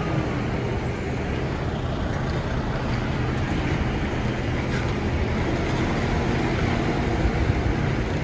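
Heavy diesel engine of an articulated lorry running under load as the lorry, stuck in mud, is towed forward on a strap by a telehandler: a steady, low engine rumble.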